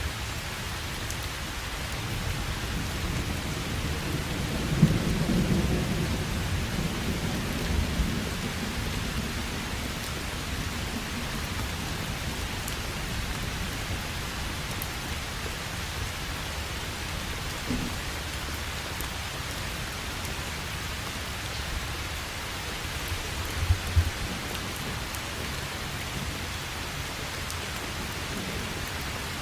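Steady rain with thunder. A low rumble of thunder swells about five seconds in and fades over a few seconds, and a short, sharper crack comes later, near the last fifth.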